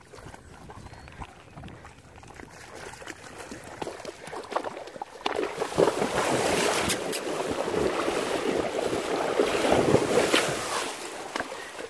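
Horse wading through a shallow pond, its legs splashing through the water. The splashing is faint at first, grows loud about five seconds in, and dies down near the end.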